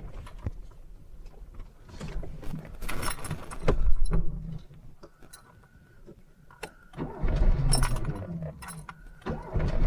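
Polski Fiat 126p rolling with its engine off, its brake drum scraping and rattling with irregular clicks. About seven seconds in a low rumble comes in as the car's air-cooled two-cylinder engine is started.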